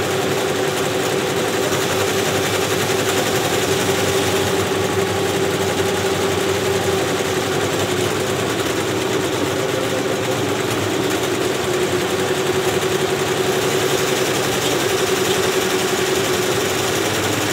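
Several multi-needle commercial embroidery machines stitching at once: a steady, fast mechanical chatter of needle strokes over a constant hum.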